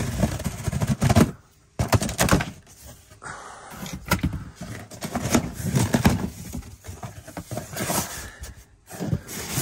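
Handling of diesel heater parts and their packaging: irregular knocks, clatter and rustling, with short pauses between.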